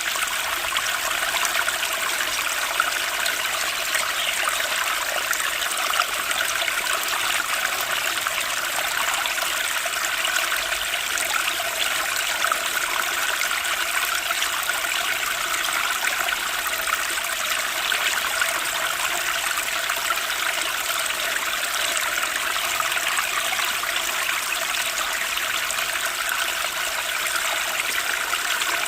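Stream water flowing steadily, an even rushing sound with no breaks.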